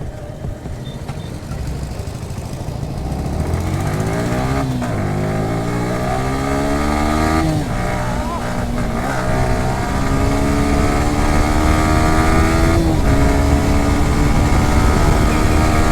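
Motorcycle engine accelerating while riding, its pitch climbing and dropping back at each gear change, about three shifts, over wind and road noise.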